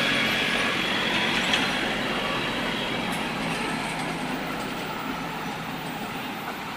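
Passing bus: engine and tyre noise running steadily and gradually fading away.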